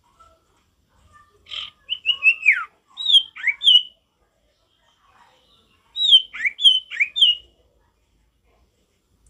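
A caged sirtu (common iora) sings two short phrases of clear, down-slurred whistles, the first about a second and a half in and the second about six seconds in.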